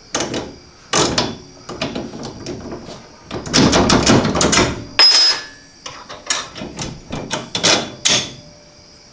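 Metal clanks, knocks and rattles of a bolt and suspension hardware being handled and pushed through a trailing-arm bushing bracket, with a run of quick rattling clicks about three and a half seconds in and the loudest clank, which rings briefly, at about five seconds.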